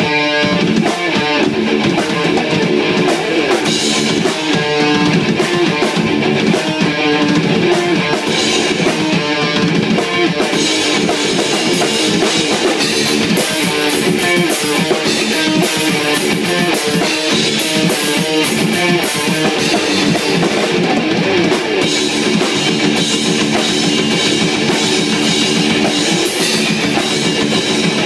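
Live rock jam of electric guitar and drum kit, loud and dense throughout. The cymbals come in much harder from about ten seconds in.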